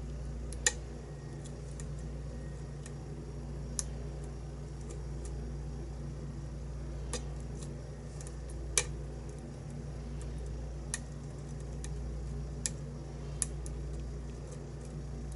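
Lock pick and tension wrench working the pins of a pin-tumbler challenge lock: scattered sharp, light metallic clicks a second or a few seconds apart over a steady low hum.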